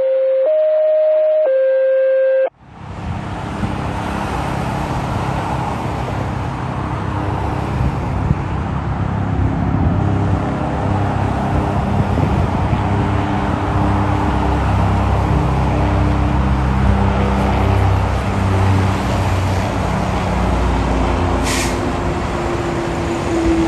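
A short three-note electronic chime, then steady highway traffic with a fire engine's engine running as it drives past.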